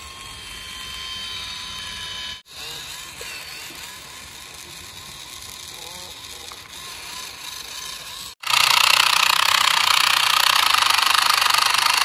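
Small electric toy motors and plastic gears whirring and buzzing, with a faint steady whine at first. The buzz turns much louder and harsher about eight seconds in.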